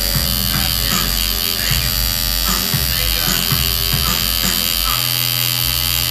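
Tattoo machine buzzing steadily as its needle works ink into facial skin, with music playing in the background.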